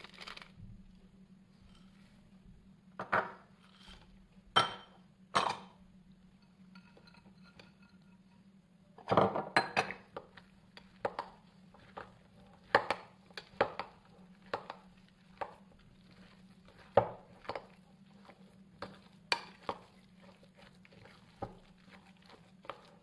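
Metal spoon clinking and scraping against a glass bowl while stirring a thick cottage-cheese mixture: separate sharp knocks at irregular intervals, about one a second, with a denser burst of clatter about nine seconds in.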